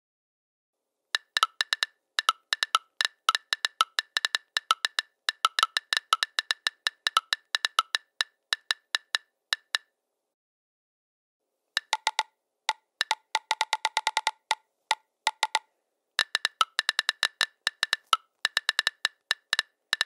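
Phone touchscreen keyboard clicks, typed in irregular runs of short, sharp taps with short pauses between them. About halfway through comes a quicker run of lower-pitched clicks, like a different key being tapped or held.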